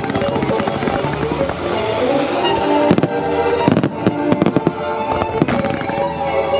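Starmine fireworks bursting in rapid succession over classical music played on the venue's loudspeakers. The bursts and crackle grow thick from about halfway through.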